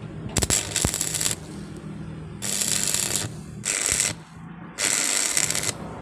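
Stick (arc) welding electrode tack-welding a steel hinge barrel: four short bursts of arc crackle and hiss, each about half a second to a second long, over a low steady hum. A few sharp taps come near the start.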